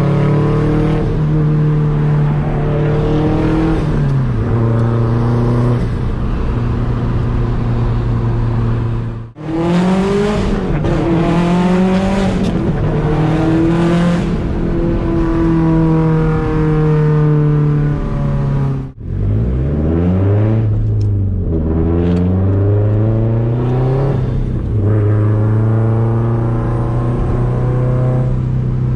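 Straight-piped exhaust of a 2004 Subaru WRX STI's turbocharged flat-four, heard from inside the cabin, running under load and cruising. The sound cuts out sharply twice, about a third and two-thirds of the way in, as gears are changed, and each time the note starts low and climbs again as the car pulls away.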